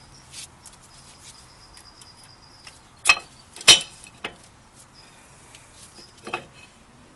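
Brake pads being fitted into a disc brake caliper bracket: a handful of sharp metal clicks and clinks, the loudest about three and a half seconds in.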